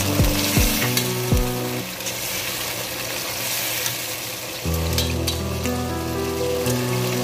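Chicken skins cooking in vinegar-laced liquid in a pan, sizzling and bubbling steadily while metal tongs stir them, with a few low knocks in the first second or so. Background music with sustained low notes plays underneath.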